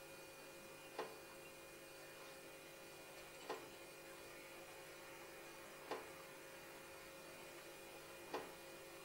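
Faint, steady electrical hum with a short sharp tick about every two and a half seconds, four times.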